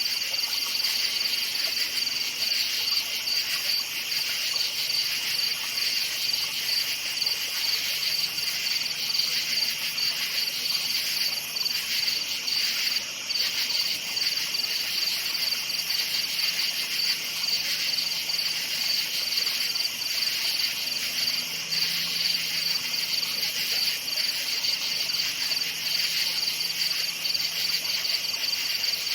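Chorus of crickets chirping steadily, a dense, even, high-pitched pulsing with no pauses.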